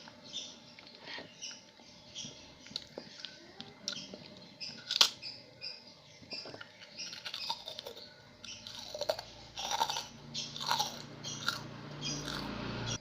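Close-miked eating of chicken and krupuk crackers: irregular wet chewing and crisp bites, with one sharp crunch about five seconds in. A low steady hum joins in about two-thirds of the way through.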